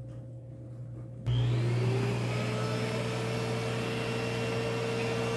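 Pet grooming vacuum switching on about a second in: its motor whine rises in pitch as it spins up, then runs steadily.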